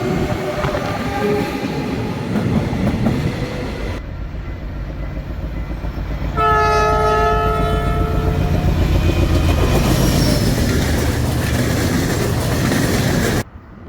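Train horns and passing trains. A horn falls in pitch as the first train goes by, and after a cut a second train gives a short, loud horn blast about six seconds in. That train then rushes past with a loud rumble and clatter of wheels on rails, which cuts off just before the end.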